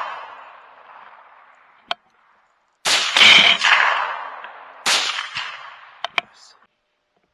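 Two rifle shots about two seconds apart, each trailing off in a long echo, with the echo of an earlier shot still fading at the start. A few sharp clicks come between and after the shots.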